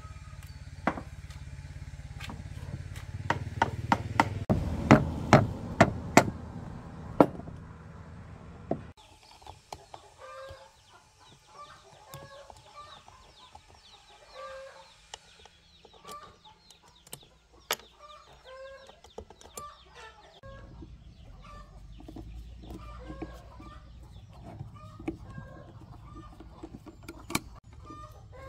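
Chickens clucking in short, repeated calls, mixed with sharp clicks and clinks of metal parts and tools being handled on a workbench during the planer's reassembly. The metal clicking is densest in the first several seconds.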